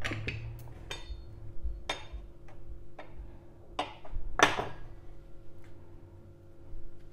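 Irregular light clicks and taps of a small metal utensil against a stone-like kitchen countertop as the folded dough's edge is pressed shut, about eight in all, the loudest about four and a half seconds in, over a faint steady hum.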